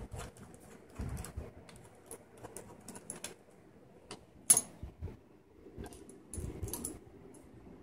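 Hand ratchet clicking in short irregular runs while loosening a steel bolt, with one sharp, much louder click about four and a half seconds in.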